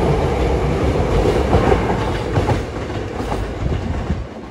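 Hankyu electric train running past along the station platform, with a steady rumble and a clatter of wheels over rail joints. The sound drops away sharply near the end.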